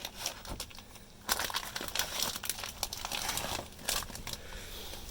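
Plastic bag crinkling and rustling as a bagged cheese is handled, in irregular crackles that start about a second in.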